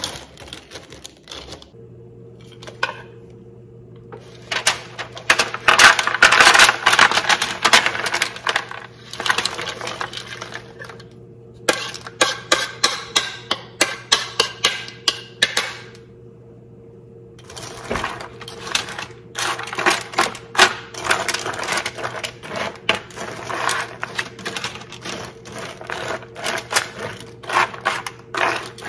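Hard pretzel sticks clattering and rustling onto parchment paper on a sheet pan as they are tipped out and spread by hand, a dense run of small clicks with a short pause past the middle. A steady low hum starts about two seconds in and runs underneath.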